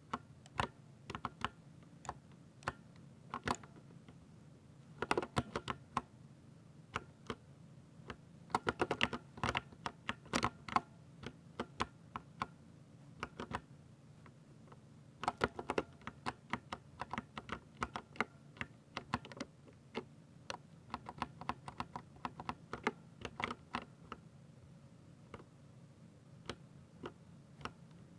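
Ducky mechanical keyboard with silver switches being typed on: keystroke clicks in uneven runs of fast typing, with stretches of sparser keypresses between them.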